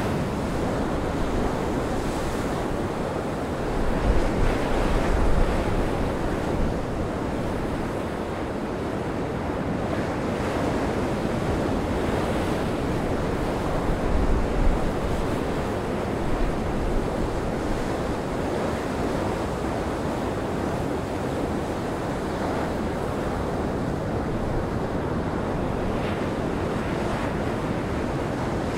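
Heavy sea surf breaking in a gale, with strong wind blowing across the microphone in deep gusts about four seconds in and again around the middle.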